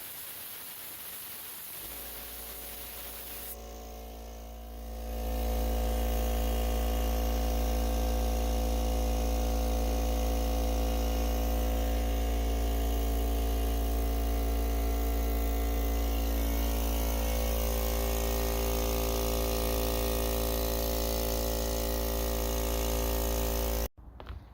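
Central Pneumatic 2 hp 8-gallon air compressor's motor and pump starting about two seconds in after a steady hiss, then running steadily and loud. It is running on a freshly replaced circuit breaker without tripping. It cuts off suddenly near the end.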